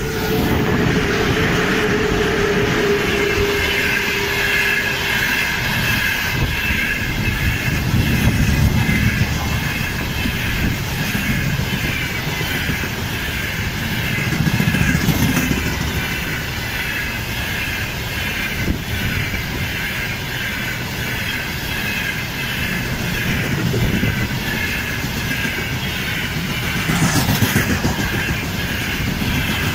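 Freight train of hopper wagons behind a VL11 electric locomotive rolling past close by: a steady rumble of wheels on rail, clicking over the rail joints and a high wheel ringing. A single tone from the locomotive drops in pitch and fades over the first few seconds as it goes by.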